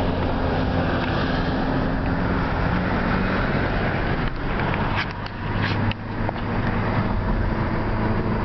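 Car driving, heard from inside the cabin: a steady engine hum and road noise, with a few short high ticks about five to six seconds in.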